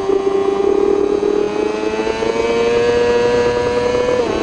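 Racing sportbike's engine heard onboard, accelerating hard, its note climbing steadily through a gear. It dips briefly with an upshift near the end, then pulls on.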